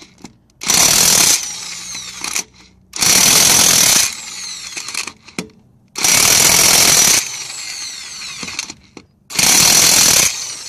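Harbor Freight corded electric impact wrench run in four loud bursts of about a second each, a few seconds apart, as it drives lug nuts back onto a car wheel. Its motor winds down with a falling pitch after each burst.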